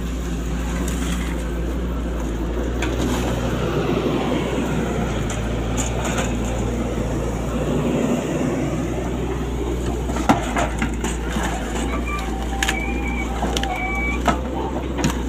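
Sany SY135F excavator's diesel engine running steadily under work, with crunching and cracking, and a sharp knock about ten seconds in.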